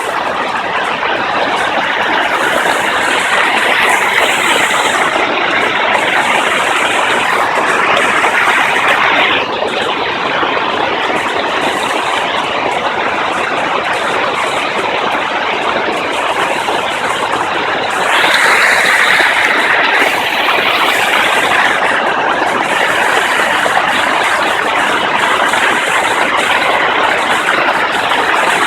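Loud, steady roar of rushing water from a waterfall and river, swelling a little a few seconds in and again past the middle.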